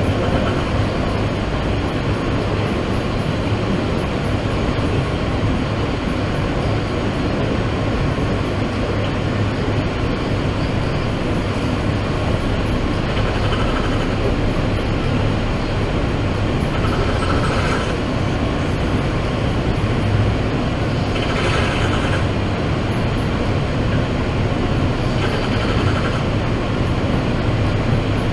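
New York City subway car running between stations: a steady rumble and low hum inside the car. From about halfway through, a sleeping passenger's snore comes through roughly every four seconds, four times.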